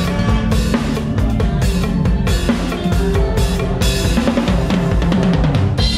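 Close-miked drum kit played in a busy groove, with bass drum, snare and cymbal hits throughout, over a live band with bass guitar and keyboard playing a Thai medley.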